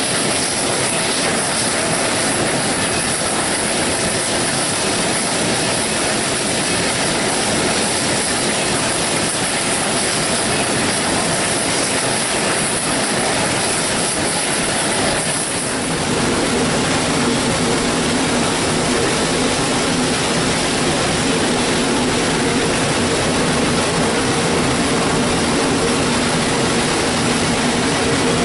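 S.P.L.Co. #28 steam locomotive running along the track, heard from its cab: a loud, steady rush of running gear, rails and steam. About halfway through it changes to a steadier drone with a low hum.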